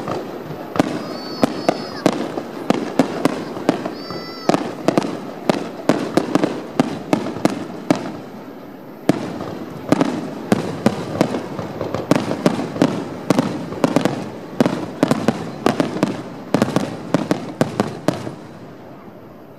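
Aerial fireworks bursting in a rapid barrage of bangs and crackles, several a second, thinning briefly before a loud bang about nine seconds in, then dying away near the end.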